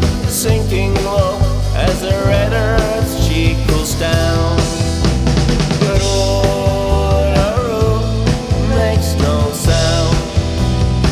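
Rock band playing an instrumental passage: a lead guitar line with bent, wavering notes over drum kit, bass and rhythm guitar.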